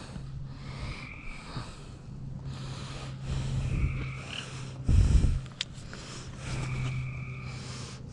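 A person's heavy breathing close to the microphone, in uneven stretches of about a second, over a steady low hum. A dull bump of handling noise comes about five seconds in.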